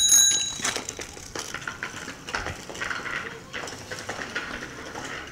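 A child's bicycle bell, rung several times in quick succession, rings out and fades away within the first half second. Light clinks and rattles follow as the small bicycle rolls on.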